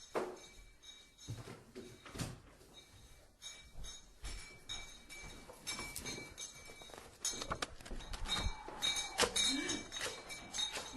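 Scattered knocks and hard clinks in a small room, sparse at first and growing busier and louder in the second half.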